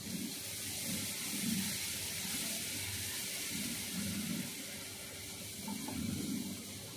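Water-soaked futkal greens sizzling in hot mustard oil in a wok over a wood fire: a steady hiss that starts suddenly as the wet leaves go in.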